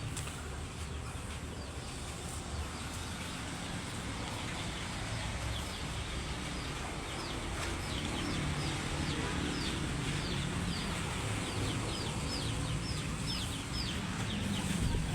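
Bird chirping: a long run of short, quick, falling chirps, about three a second at its busiest in the second half, over a steady low background rumble.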